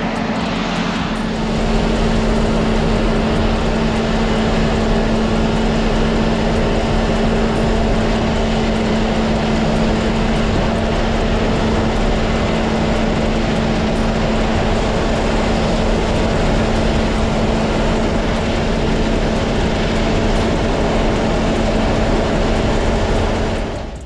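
New Holland CR 8.90 combine harvester working in wheat: loud, steady machine noise with a constant hum that holds unchanged throughout.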